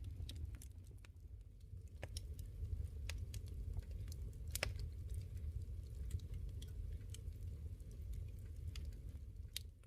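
Wind rumbling on the microphone, with scattered irregular ticks of precipitation striking during a snow storm.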